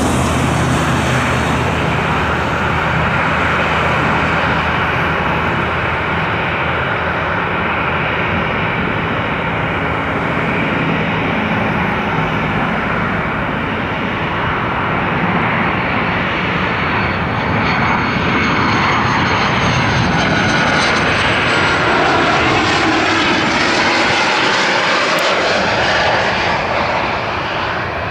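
Cessna Citation XLS+ business jet on final approach and landing, its twin Pratt & Whitney Canada PW545C turbofans giving a steady jet rush and hiss. A thin high whine glides down in pitch in the second half as the jet draws near and passes.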